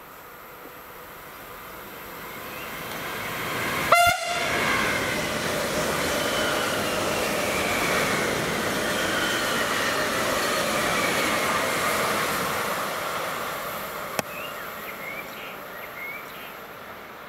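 Electric train passing at speed, its rolling noise building, holding, then fading. A short horn toot sounds about four seconds in, and a whine falls in pitch as the train goes by.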